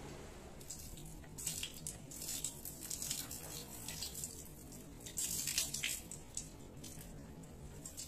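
Water poured from a container onto a waterproofed tarp, splashing and pattering in irregular bursts as it beads and runs off the fabric.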